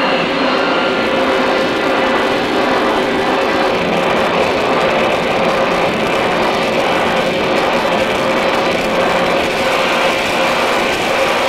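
Harsh noise music: a dense, steady wall of amplified, distorted noise with a constant hum-like tone running through it.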